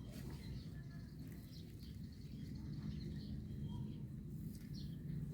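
Faint, scattered short high chirps over a steady low background rumble.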